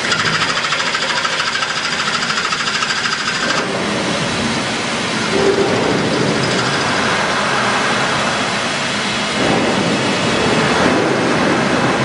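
Hanwha XD26II-V Swiss-type CNC automatic lathe machining: a steady hiss with faint high whining tones, changing in character every few seconds as the machining steps change.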